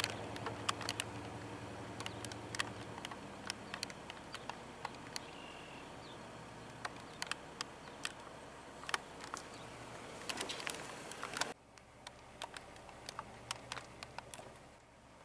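A passing car's engine hums low and steady, then fades after about three seconds. Scattered sharp clicks run through the whole stretch.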